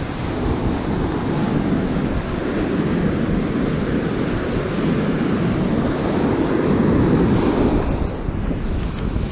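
Ocean surf washing onto the beach, with wind buffeting the microphone. The rush builds and then eases off about eight seconds in.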